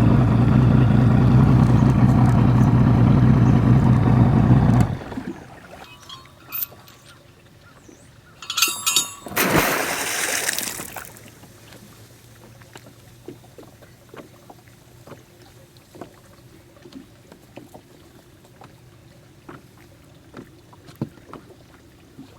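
Boat's outboard motor running steadily, then shut off abruptly about five seconds in. A few seconds later comes a brief rattle and a rush of noise lasting about two seconds, as the anchor goes over the side. After that there are only faint scattered knocks.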